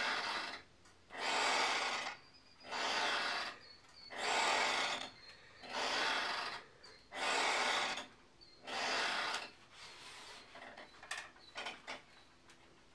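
About seven long rasping, rubbing strokes, roughly one every one and a half seconds, each lasting about a second. Near the end they give way to a few light clicks and taps.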